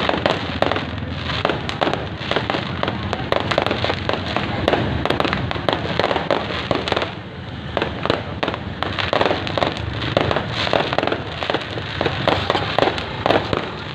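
Fireworks and firecrackers going off in a dense barrage, many sharp pops and bangs a second, with a brief lull about halfway through.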